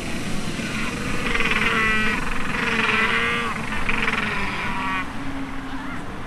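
King penguins calling: a loud trumpeting call with a fast warble, in three phrases starting about a second in and lasting about four seconds, over a steady low rumble.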